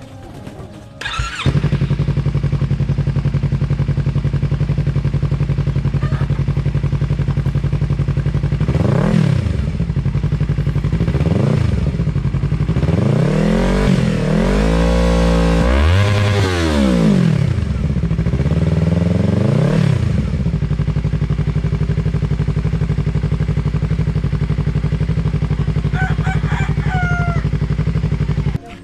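Yamaha R3's parallel-twin engine breathing through an Akrapovic aftermarket muffler: a steady idle, blipped up and down repeatedly in the middle with the longest, highest revs about halfway through, then settling back to idle. The sound cuts off suddenly near the end.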